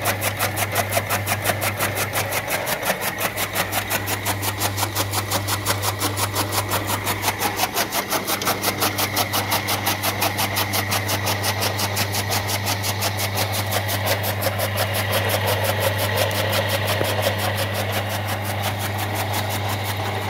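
Chaff cutter (toka machine) driven by a 2.5 hp electric motor, chopping green fodder: a steady motor hum under a fast, even rhythm of chops as the flywheel's blades cut the grass fed through its rollers.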